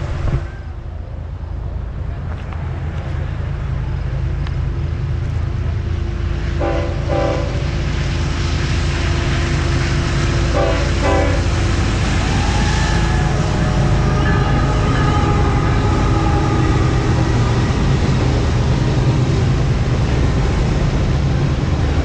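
Freight train with a diesel locomotive approaching and passing: a low rumble that grows steadily louder. The horn sounds short blasts in two pairs, about 7 and 11 seconds in.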